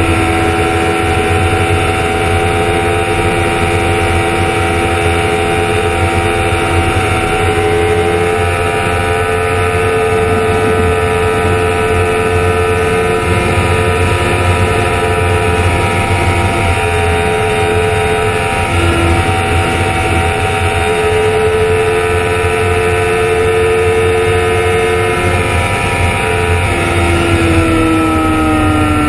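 Honda CBR1000RR's inline-four engine running at a steady high pitch at about 230–245 km/h, under heavy wind rush. Near the end the engine note falls as the bike slows.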